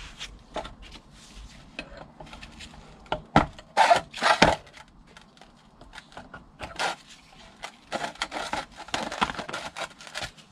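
Clicks, knocks and scraping as the front oil seal is worked out of a Ford Transit diesel vacuum pump's housing by hand. There is a cluster of loud knocks a few seconds in and a denser run of scraping near the end.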